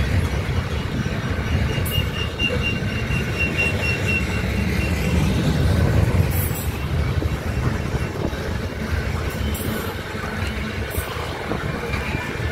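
Tank cars of a long crude-oil unit train rolling past, with a steady low rumble of steel wheels on the rails. A thin, steady metallic squeal rises above it from about a second and a half in until about five seconds in.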